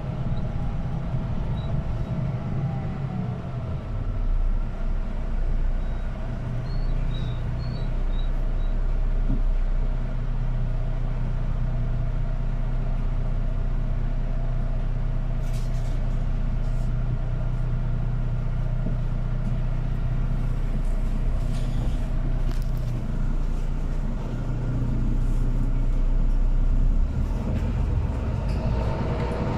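Inside a city bus as it drives between stops: steady engine and drivetrain rumble with a low hum, building a little about four seconds in as it pulls away.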